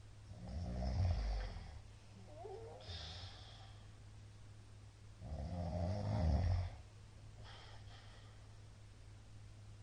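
A man snoring loudly in his sleep: two long snores about four seconds apart, each lasting about a second and a half, with fainter breaths between them. A steady low hum runs underneath.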